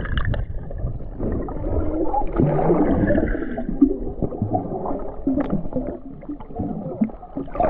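Muffled underwater gurgling and bubbling of water, with air bubbles streaming past.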